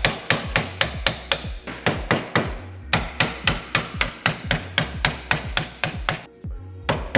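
Hammer tapping on a screwdriver set against a Turbosmart blow-off valve's threaded cap, driving the collar round to close it up. Quick sharp taps at about four a second, with a brief pause about six seconds in before they resume.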